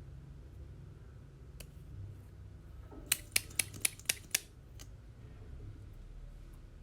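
A quick run of six sharp clicks, about five a second, with a single fainter click before and after, over a low steady hum.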